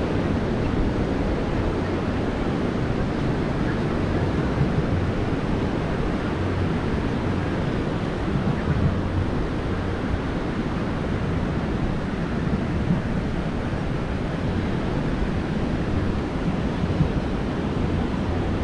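Ocean surf breaking on the beach with wind rushing over the microphone, a steady wash of noise.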